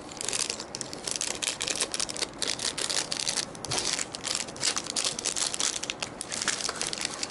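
Small plastic packets crinkling and rustling in a dense, irregular crackle as they are handled and lures are packed into them.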